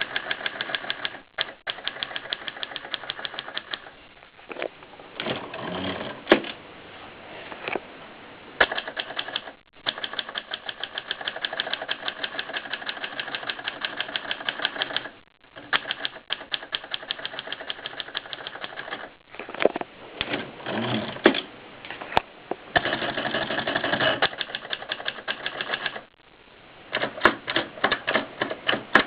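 Contessa manual typewriter being typed on in fast, even runs of keystrokes, with short pauses between runs.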